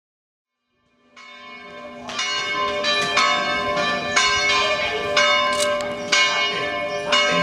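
Church bells ringing in an irregular peal, several bells struck one after another with long ringing tones; the sound fades in about a second in.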